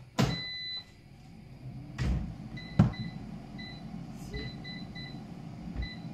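Air fryer's touch control panel beeping as its settings are keyed in: one longer beep at the start, then about seven short beeps of the same pitch. Two knocks come around two to three seconds in, the second the loudest sound.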